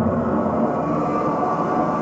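A loud, rumbling roar sound effect played through an animatronic model's loudspeaker. It starts right away and lasts just under three seconds.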